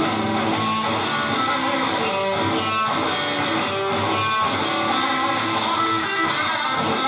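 Stratocaster-style electric guitar played with overdrive gain on the Emerald single coil of a Lace Sensor dually humbucker: strummed chords and picked notes, loud and continuous.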